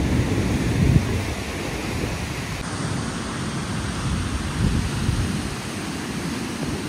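Steady rushing roar of the Niagara River rapids, with wind buffeting the microphone in irregular low gusts.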